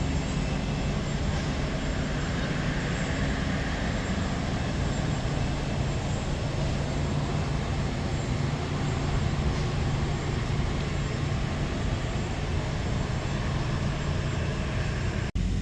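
Steady background rumble and hiss with a low hum underneath, unchanging throughout, briefly dropping out just before the end.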